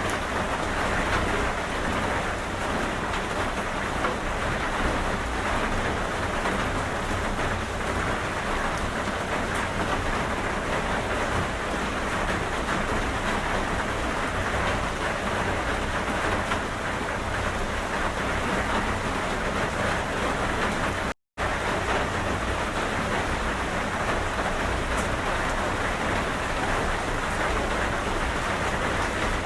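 Steady rain, an even hiss that stays at one level throughout. About two-thirds of the way through it drops out to silence for a split second, then carries on unchanged.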